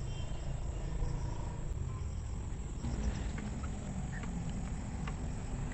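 Evening outdoor ambience: crickets or other insects chirping faintly, with a few short high chirps, over a steady low rumble.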